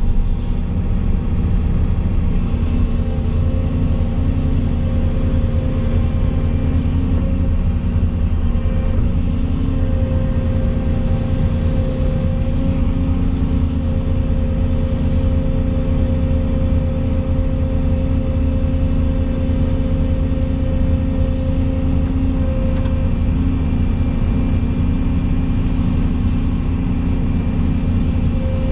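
Volvo EC220 excavator's diesel engine and hydraulics running steadily, heard from inside the cab, a deep hum with a thin whine that drops out for a few seconds near the end, as the boom holds and lowers a suspended load.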